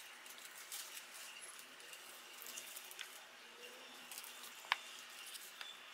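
Faint wet, sticky peeling as a soft silicone mould is pulled off a glutinous red date rice cake (nian gao), with a few small ticks.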